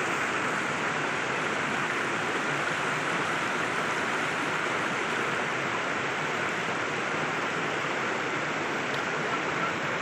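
Steady rushing of a mountain creek (quebrada) flowing over rocks, an even noise that does not change.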